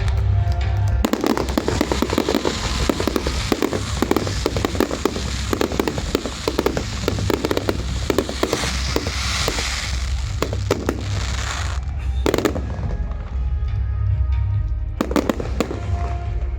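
Fireworks going off: a rapid run of bangs and crackling, then a few single, louder bursts near the end, over background music.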